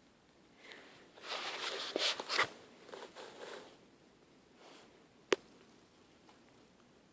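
Rustling and scuffing for about three seconds, starting about a second in, with a few small clicks inside it, then a single sharp click a couple of seconds later.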